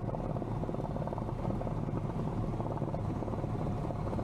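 A 1973 Cessna 172M's four-cylinder Lycoming engine and propeller running steadily, heard from inside the cabin as the plane rolls along the runway.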